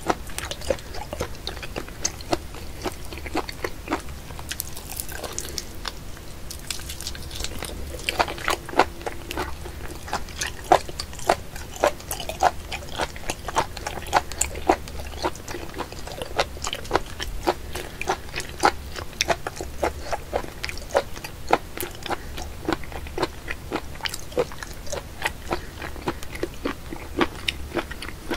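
Wet, sticky clicks and crackles of a live octopus handled on a paper sheet: its suckers and slimy tentacles catching and pulling free from the paper and fingers, many irregular clicks a second.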